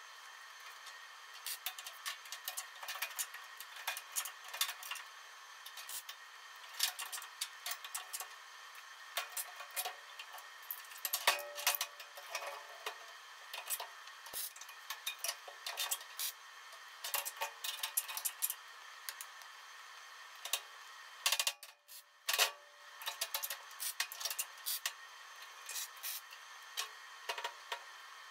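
Scattered, irregular metallic clicks and knocks of steel tools and parts being handled on a steel workbench, over a steady faint hum.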